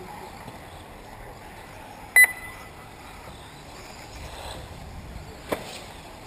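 A race lap-timing system gives one short, high electronic beep about two seconds in, the signal of a car crossing the timing loop. A single sharp click comes later, over a faint steady background.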